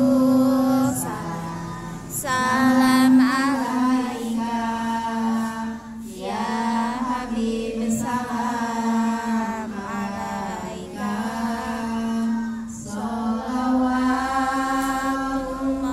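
A woman singing an unaccompanied devotional chant into a microphone, in phrases of a few seconds each with short breaks between them, over a steady low held tone.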